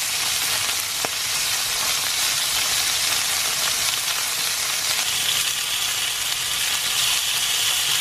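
Burgers and sausages sizzling in hot fat in a frying pan, a steady hiss that grows slightly stronger in the second half.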